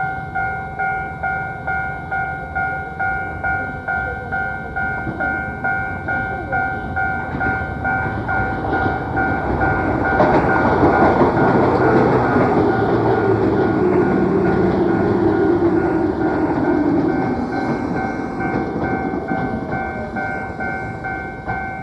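Railway level crossing alarm ringing steadily at about two strokes a second while a Keio Inokashira Line electric train passes through the crossing. The train builds up about seven seconds in, is loudest from about ten to seventeen seconds, and fades. The alarm cuts off at the end. This is a low-fidelity cassette recording.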